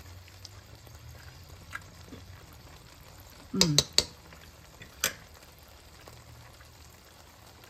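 Spaghetti in tomato sauce sizzling faintly in a hot nonstick skillet. A fork clatters against the pan about three and a half seconds in, with another sharp tap about a second later.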